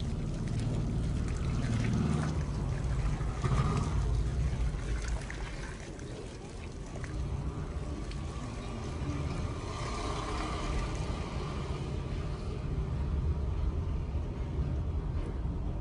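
Water pouring in a steady stream from a forged metal jug, splashing into a muddy puddle on the ground, over a steady low rumble.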